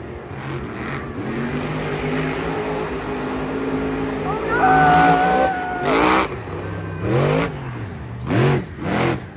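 Monster truck engine running, then blipped hard four times in quick succession, each rev rising and falling in pitch about a second apart. A steady high tone sounds for about a second midway.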